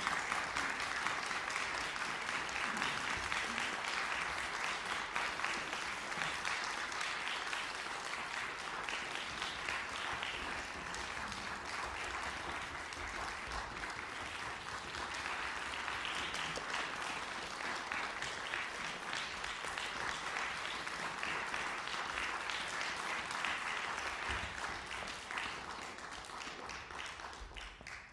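Audience applauding in a concert hall: dense, steady clapping that tapers off near the end.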